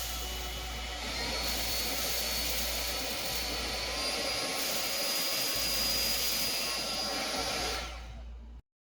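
Philips SpeedPro 8043 cordless stick vacuum running, a steady suction rush with a high motor whine that steps up in pitch twice. The sound drops near the end and then cuts off abruptly.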